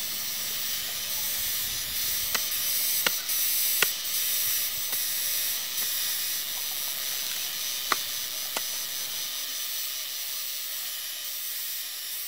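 A hand digging tool striking earth and wood: five sharp strikes, three about a second apart from two to four seconds in and two more around eight seconds in. Under them runs a steady high hiss of outdoor ambience.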